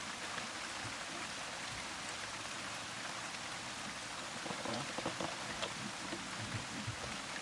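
Steady rain falling, an even hiss, with scattered light taps of drops hitting nearby surfaces from about halfway through.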